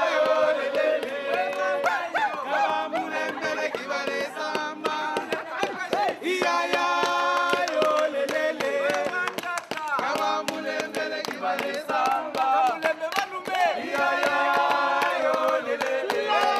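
Music with singing voices holding and bending notes over frequent sharp percussive hits.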